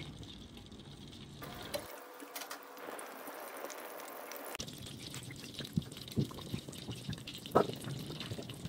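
Stuffed kachoris deep-frying in oil over a medium flame: a faint bubbling sizzle, with a few sharp pops in the second half.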